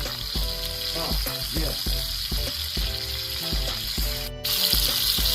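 Food sizzling on a Korean BBQ camp grill: a steady frying hiss that cuts out for a moment about four seconds in and comes back louder. Background music with a bass beat plays over it.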